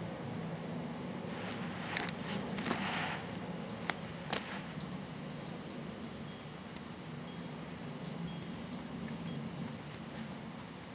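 A Seiko 7T34 quartz chronograph's electronic alarm beeping: four short, high beeps in a row. A few sharp clicks come before it as the watch's pushers are pressed.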